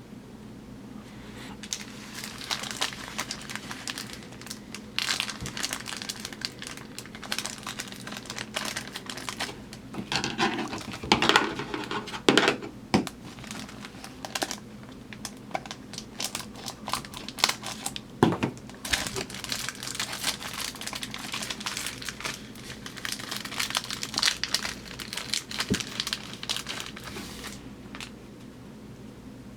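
Plastic rack-pack wrapper crinkling and rustling as baseball cards are handled, in a run of crackles with louder bursts about ten to thirteen seconds in and again around eighteen seconds.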